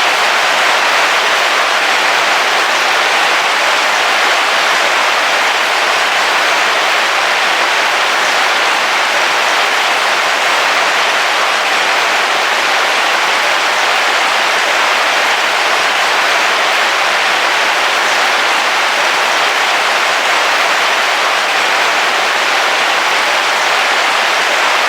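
Heavy rain falling steadily on the roof of a camping car, heard from inside as an even, unbroken hiss.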